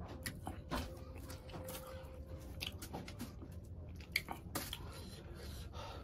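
A person chewing chicken curry close to the microphone, with scattered mouth clicks and smacks and one sharper click a little after four seconds.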